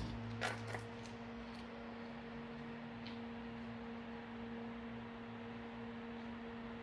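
Steady low hum over quiet room tone, with two faint taps about half a second in.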